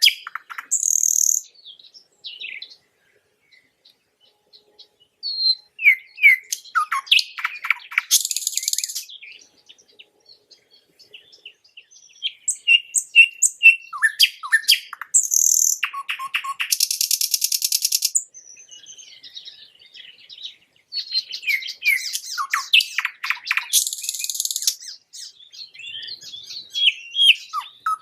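Nightingale singing in separate phrases of quick sweeping notes, repeated short whistles and a fast rattling trill, with pauses of a few seconds between phrases.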